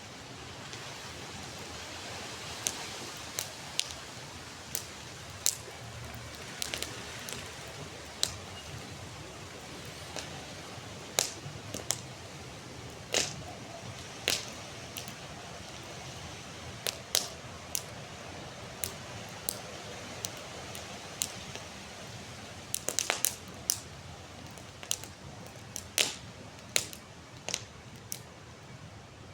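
Wood campfire burning: a steady hiss with irregular sharp cracks and pops, several in quick succession about two-thirds of the way through.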